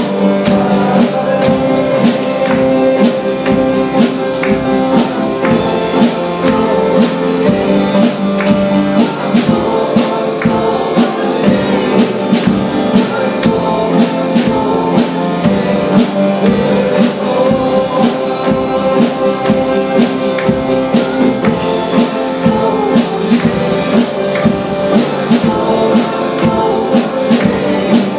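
Church worship band music: held chords over a steady drum beat throughout.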